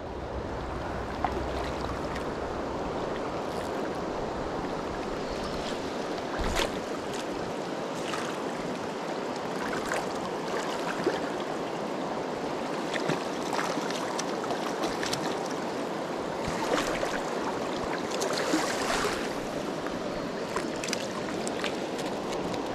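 Steady rush of flowing river current, with a few faint sharp ticks and one knock about six seconds in.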